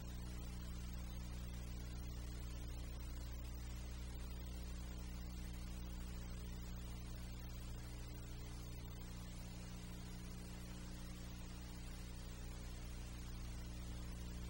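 Steady low electrical hum with a layer of hiss, unchanging throughout; no sound of the eagle itself can be picked out.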